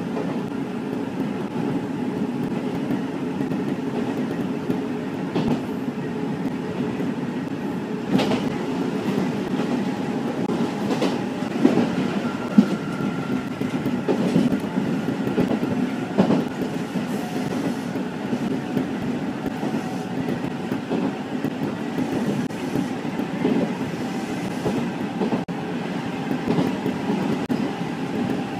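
Nankai Koya Line electric commuter train running at speed, heard from the driver's cab: a steady running rumble as it picks up speed, with a few sharp wheel clacks over the track.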